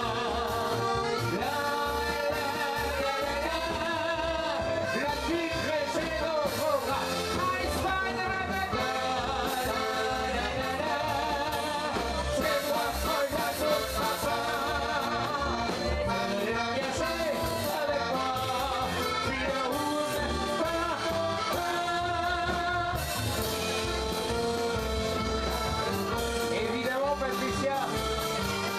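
Live band playing a lively dance tune: accordion, electric guitar and drum kit over a steady beat, with a man singing into a microphone.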